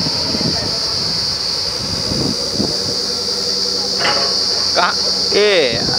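Truck-mounted borewell drilling rig running steadily, a low mechanical rumble under a constant high hiss. A few short wavering squeals come near the end.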